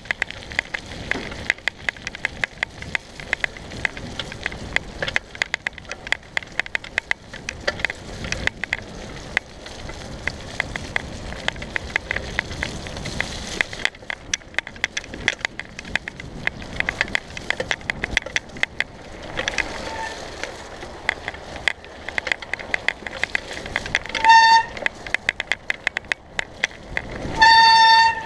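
Mountain bike ridden fast down a rough, wet trail: rushing tyre noise with constant clattering and rattling of the bike over the bumps. Near the end the brakes squeal loudly, once briefly and then again for longer, as the rider slows into a bend.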